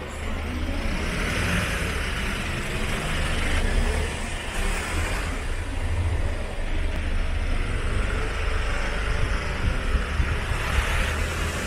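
Road traffic on a city street: engine rumble and tyre noise from passing cars and small trucks, swelling twice as vehicles go by.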